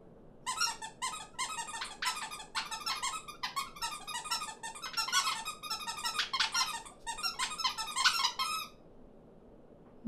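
Cartoon small birds chattering in high, squeaky voices: a dense run of quick chirps and squeaks that stops about a second before the end.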